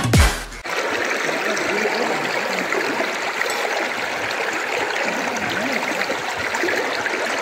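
Steady rushing of a waterfall's falling water, starting as the music cuts off about half a second in.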